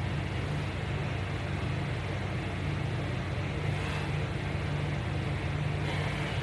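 Steady hum and whoosh of an electric fan running in the room.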